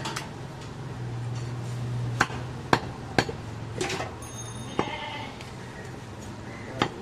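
Butcher's cleaver chopping goat meat: about seven sharp, irregularly spaced chops over a steady low hum.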